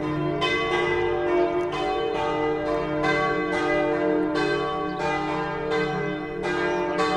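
Church bells ringing, several bells struck in turn about twice a second, their tones overlapping and ringing on.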